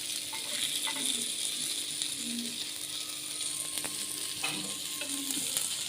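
Chicken pieces sizzling in oil on a hot tawa (flat griddle), a steady frying hiss with a few small pops.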